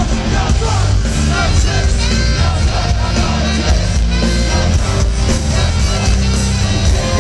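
Live rap-metal band playing loud, with heavy bass and drums.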